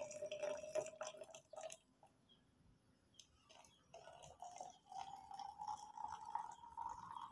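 Hot water being poured into a container, a faint tone slowly rising in pitch as the vessel fills, with a few light clinks near the start.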